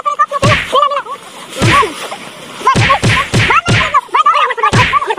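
A rapid, irregular series of slaps and whacks from a staged fistfight, thickest in the second half, with short high yelling cries between the blows.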